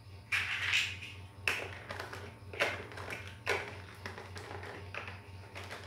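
Large plastic building blocks being pressed and snapped onto a model by hand: a series of sharp plastic clicks and clacks, about one a second.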